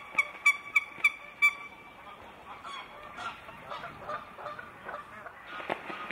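Geese honking: a quick run of about six loud calls in the first second and a half, then softer, scattered calls. Near the end comes heavy splashing and wing-beating on the water as mute swans fight.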